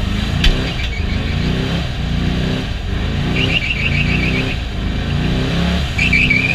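The 1641cc air-cooled flat-four of a VW Baja Bug, heard from inside the cabin while driven hard off-road, revving up and falling back again and again. There is a sharp knock about half a second in, and rapid high squeaks come in two runs later on.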